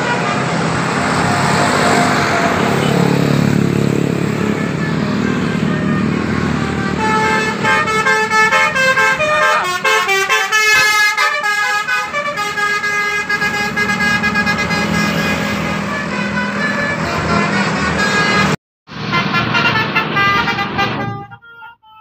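Telolet horns on coach buses: multi-tone musical horns playing quick runs of shifting notes as the buses drive past, over the rumble of the bus engines. The horn tones cut off for a moment near the end, then start again briefly.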